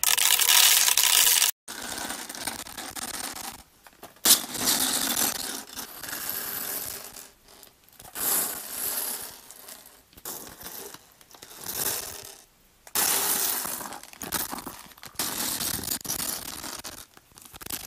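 Loose plastic building bricks clattering onto a wooden tabletop as they are tipped out of bags and spread by hand. The clatter comes in bursts a second or two long with short pauses between, loudest in the first second and a half.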